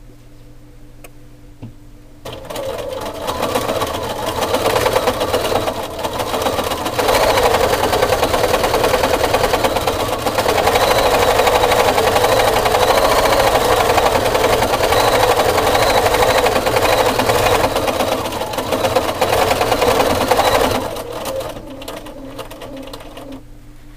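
Bernina 440QE sewing machine stitching free-motion with its BSR stitch regulator, so needle speed follows how fast the fabric is moved. It starts about two seconds in, picks up speed, runs fast and steady, then slows and stops near the end.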